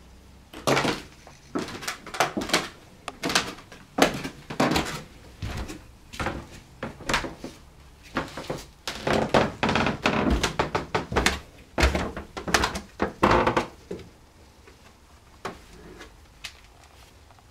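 Footsteps going down wooden stairs, a run of irregular knocks that stops about three seconds before the end.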